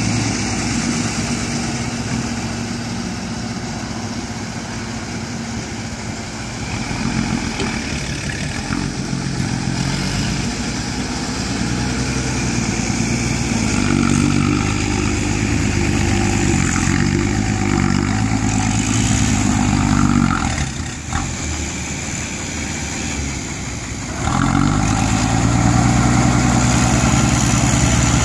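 Old six-wheel dump truck's engine running as the loaded truck manoeuvres and backs up, its note rising and falling. About 24 s in the engine runs louder and holds steady as the tipper bed is raised to dump the soil.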